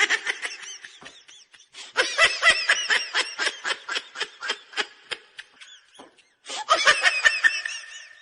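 A laugh ringtone: recorded laughter in three bouts of rapid 'ha-ha' pulses, about four a second, with short breaks between them.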